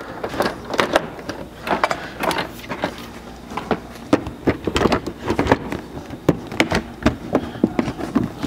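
4th-gen Toyota Tacoma's plastic front fascia being pressed and worked into place by hand, a run of irregular clicks and knocks as the plastic shifts and seats.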